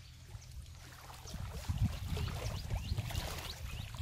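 Wind buffeting the microphone at the water's edge: an irregular low rumble that swells about a second and a half in and stays gusty, with faint short chirps above it.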